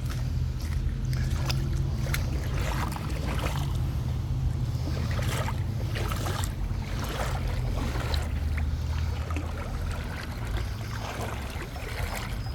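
A person wading through a river, water sloshing and splashing around the legs in irregular strokes, over a steady low rumble.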